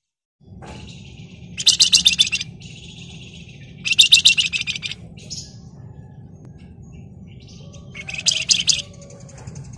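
Javan fulvetta (the 'flamboyan' or wergan Jawa songbird) giving three loud, rapid rattling trills of under a second each, with softer twittering between them. A steady low hum runs beneath.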